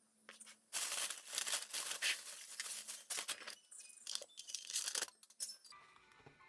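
Packaging crinkling and rustling as it is handled, in a dense run of small crackles over a faint steady low hum. The crinkling stops near the end, and soft music begins.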